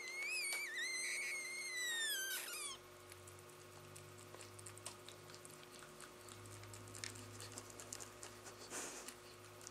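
A Labrador's long, high-pitched whine that wavers up and down in pitch, then slides down and stops about two and a half seconds in. After it, faint scattered clicks and patter.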